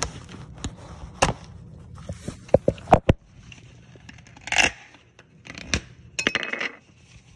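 Scraping and rustling close to the microphone, broken by a handful of sharp knocks and clicks, most of them between about one and three seconds in, with short rustles after that.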